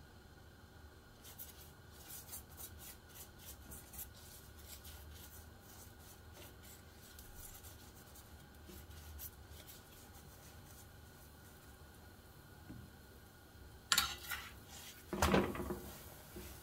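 Silicone pastry brush spreading oil over a chapati in a flat pan: a run of soft, quick scratchy strokes. Near the end, two louder scrapes against the pan as the chapati is turned over with a spoon.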